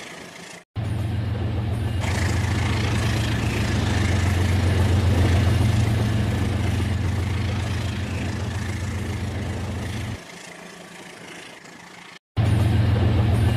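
Battery-powered toy train set running: a steady low mechanical hum with a rattling noise over it, which drops to a much quieter sound about ten seconds in. The sound breaks off sharply for a moment just under a second in and again near the end.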